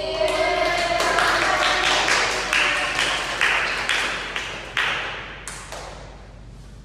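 A small group clapping their hands. The clapping dies away about five seconds in.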